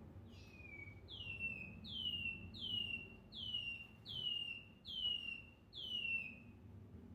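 A caged chorona, a Brazilian seedeater kept for its song, back in song after its moult: a run of eight plaintive whistles, each sliding down in pitch, about one every three quarters of a second. The first whistle is fainter than the rest.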